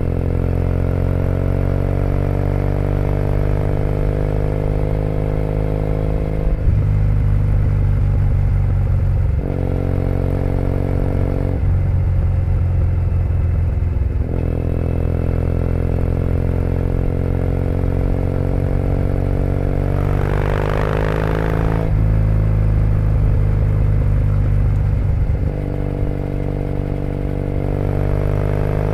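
2008 Triumph Bonneville T100's 865 cc air-cooled parallel twin running through British Customs Predator aftermarket pipes. It pulls with the pitch rising slowly, then drops off several times at gear changes or when the throttle is eased. About two-thirds of the way in there is a brief rushing noise.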